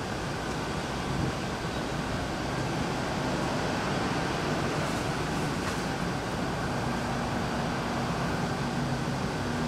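Steady background rumble and hiss of traffic and station machinery on a train platform, with a low hum growing a little stronger in the second half.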